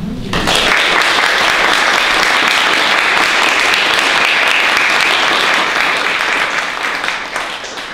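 Small audience clapping, starting about half a second in and tapering off near the end.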